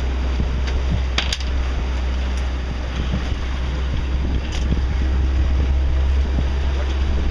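Motorboat engine running steadily while the boat is under way, a continuous low drone mixed with wind and water noise. A sharp click about a second in.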